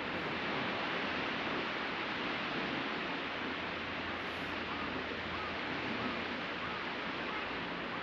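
Steady wash of ocean surf breaking on a sandy beach, an even rushing noise with no distinct wave-by-wave rise and fall. A few faint short chirps come through in the second half.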